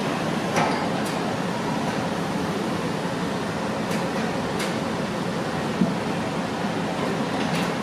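Nagasawa Sawaboy NSG-08F food grinder running steadily under its motor during a test run, a continuous machine hum with a few faint ticks.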